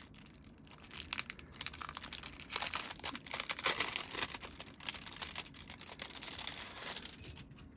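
Plastic packaging crinkling and crackling as it is handled and pulled open, an irregular plasticky noise loudest in the middle that stops just before the end.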